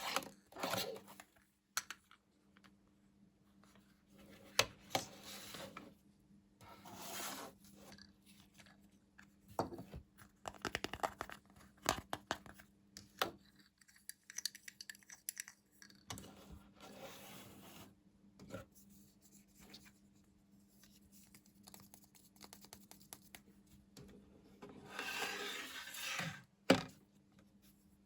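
Packaging being opened and handled by hand: tearing, scraping and rubbing, broken by scattered small clicks and taps, with a longer tearing rustle about three-quarters of the way in.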